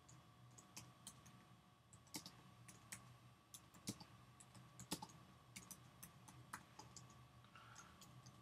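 Faint typing on a computer keyboard: irregular key clicks, some sharper than others, over a low steady hum.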